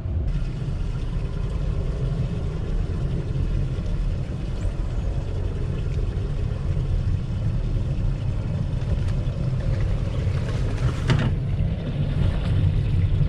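Wind buffeting the microphone on an open boat deck: a steady low rumble, with a brief sharp sound about eleven seconds in.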